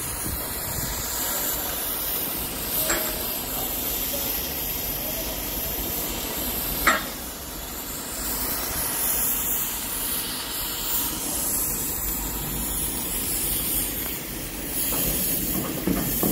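Steady hissing background noise of a shipyard, broken by two short sharp knocks about four seconds apart, the second louder, like metal struck during hull work.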